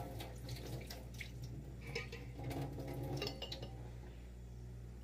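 Water splashing into a kitchen sink, with dripping and a few light knocks, dying away near the end.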